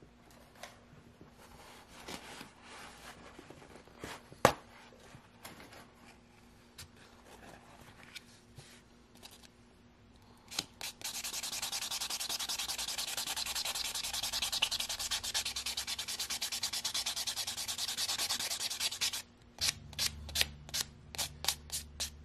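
White sponge nail buffer rubbed against a fingernail. Faint handling and a sharp tap come first, then about eight seconds of fast, continuous scrubbing, then separate buffing strokes, about three a second, near the end.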